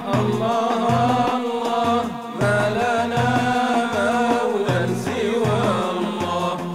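Islamic nasheed: a sung voice holding long, wavering melodic lines over a steady low beat.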